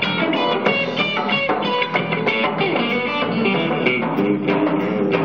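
A live band led by a Telecaster-style electric guitar playing a line of quick, short notes over bass and drums.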